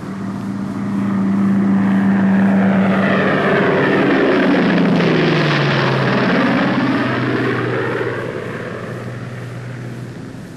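Propeller airplane flying low overhead. Its engine note swells, drops in pitch about halfway through as it passes, and then fades away.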